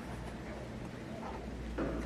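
Quiet handling of LEGO pieces, with a soft rustle near the end over a low steady hum.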